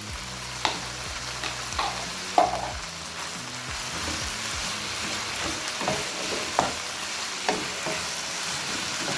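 Shredded beef, onions, cabbage and freshly added bell peppers sizzling as they stir-fry in a pan. A spatula knocks and scrapes against the pan now and then.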